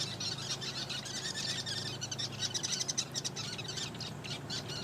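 Sociable weaver colony chirping: many birds calling over one another in a constant chatter.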